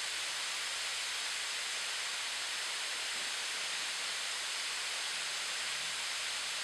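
Water spraying from a large rain shower head: a steady, even hiss.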